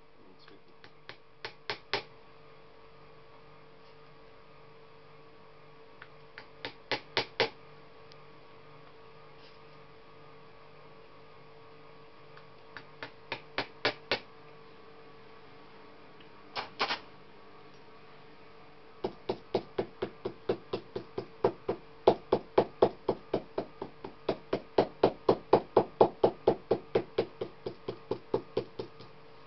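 Shoemaker's hammer tapping on a leather shoe upper pulled over a last. It goes in short runs of quick taps, each run growing louder, and from about two-thirds of the way in it settles into a long, even run of about four taps a second. A steady hum lies underneath.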